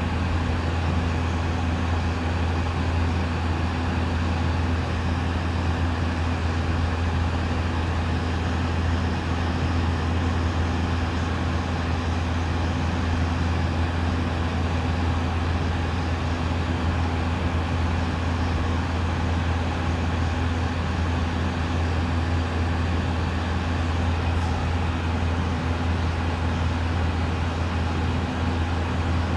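A steady low hum with a hiss over it.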